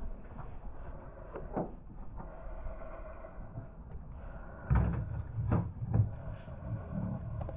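Steady hum of a boat's engine running, with a sharp knock about a second and a half in and a cluster of louder thumps about five to six seconds in.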